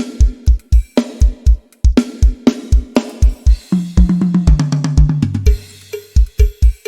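Drum kit playing a steady beat with kick and snare hits and cymbals. Just past the middle comes a tom fill that steps down in pitch, then the beat picks up again.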